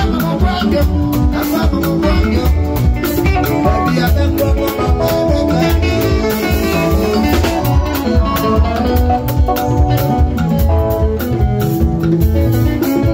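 Live highlife band playing a groove on drum kit, electric guitars and Roland Juno-DS keyboards.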